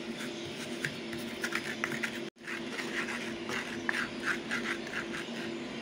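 Wooden pestle grinding garlic cloves and salt in a cobek mortar to make a paste: a quick run of short scraping strokes over a steady low hum. The sound drops out briefly about two seconds in.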